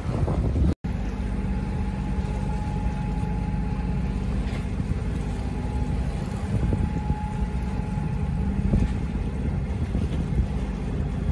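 A steady low rumble with wind and water noise from a sailboat under way, with a faint steady hum on top. The audio drops out briefly less than a second in.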